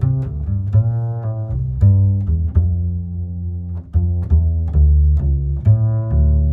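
Background music: a melody of short, sharply struck notes over sustained low bass notes.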